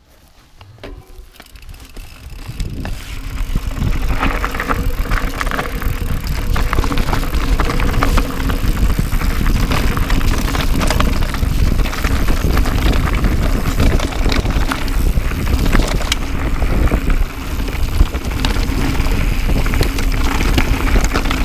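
YT Capra AL 29er enduro mountain bike rolling fast down a rocky trail: tyres crunching over stones, with frequent knocks and rattles from the bike, under a deep rush of wind on the microphone. Quiet at first, it builds over the first few seconds as the bike picks up speed.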